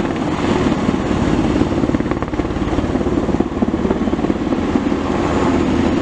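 Sikorsky Firehawk firefighting helicopter flying in low, its main rotor beating rapidly and steadily.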